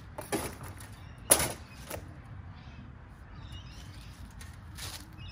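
Flat metal panels of a flat-pack fire pit being handled, knocking and scraping against each other. There are a few sharp clanks, the loudest about a second and a half in.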